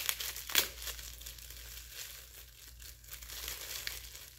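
Clear plastic wrapping crinkling as a small light bulb is unwrapped by hand, with two sharper crackles in the first second.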